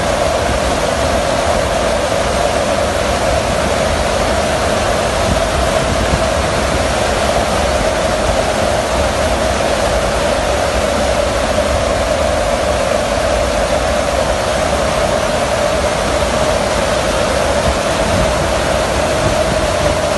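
Loud, steady rush of wind and engine noise inside a transport aircraft's open cargo hold in flight, with a constant droning note under the roar.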